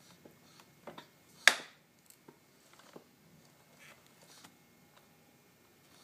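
The popping sound from a GasGas motorcycle: one sharp, loud pop about one and a half seconds in, with a few faint clicks around it and no engine running.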